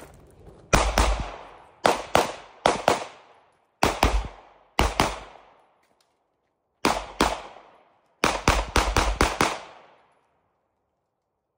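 Gunshots fired on a timed practical-shooting run: about eighteen sharp shots, mostly in quick pairs, ending with a fast string of about six near the end. Each shot has a short echoing tail.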